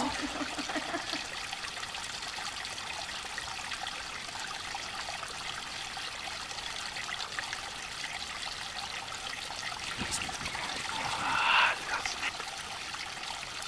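Steady flowing-water sound of a forest stream trickling, with a brief louder swell of noise about eleven seconds in.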